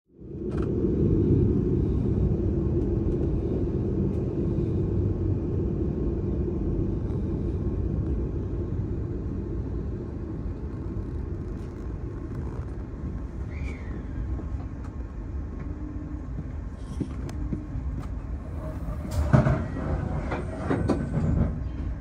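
Steady low rumble of a KiHa 40 diesel railcar, loudest at first and slowly easing off, with a few sharp clanks near the end.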